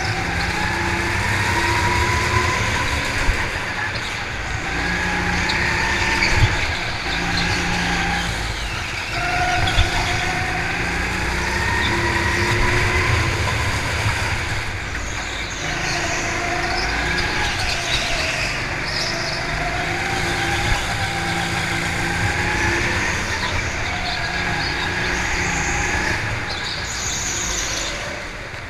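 Go-kart engine heard on board, revving up in long rising sweeps and dropping back again and again as the kart accelerates down the straights and lifts off for the corners.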